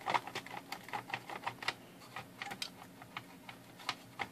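Irregular run of small clicks and creaks from the plastic case of a SkyScan atomic wall clock being worked apart by hand.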